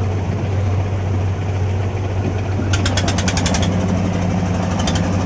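Fishing boat's diesel engine running with a steady low drone. About halfway through there is a second or so of rapid clattering.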